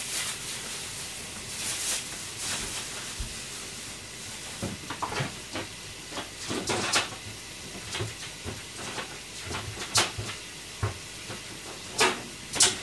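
Pans of water boiling on a gas stove, blanching broccoli and green soybeans, give a steady hiss. Scattered clicks and knocks sound over it, the sharpest about ten seconds in and twice near the end.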